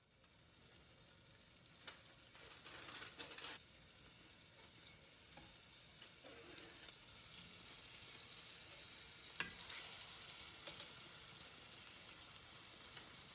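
Floured cube steaks frying in avocado oil in a braising pan, a steady sizzle that grows gradually louder, with a few light knocks along the way.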